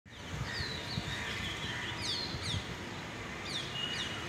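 Birds chirping: short, sharply falling notes, several in quick succession, over steady outdoor background noise.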